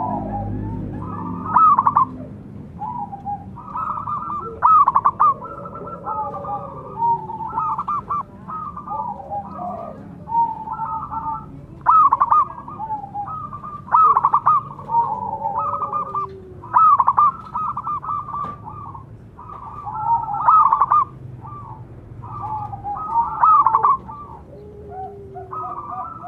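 Several zebra doves (perkutut) cooing, their trilled, staccato calls overlapping and answering one another without pause, with a louder phrase breaking in every two to three seconds.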